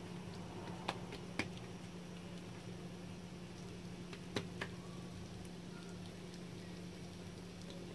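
Hands pressing and stretching oiled dough on a stone countertop: soft handling noise with a few light taps, over a steady low hum.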